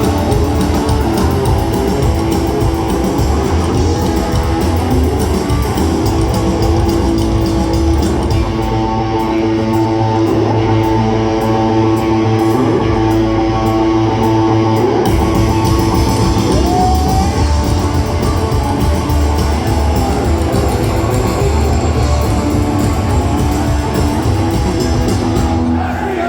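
Live rock'n'roll band playing an up-tempo number on electric guitar, bass and drums. The top end thins out for about six seconds in the middle before the full band comes back in.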